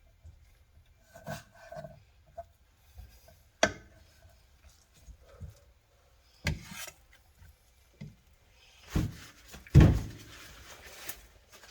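Kitchen knife slicing raw sea bass into sashimi and knocking on the cutting board, in scattered short knocks and scrapes. The loudest are a cluster near the end.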